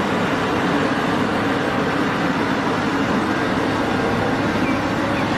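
Heavy machinery running steadily: the diesel engine of a Cat 6015B hydraulic mining excavator, a constant low hum under a steady rushing noise.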